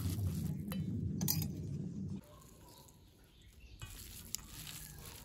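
Hand squeezing and mixing mashed boiled potato with chopped onion and coriander in a stainless steel bowl, with soft squishing and patting. A low steady hum underneath cuts off suddenly about two seconds in.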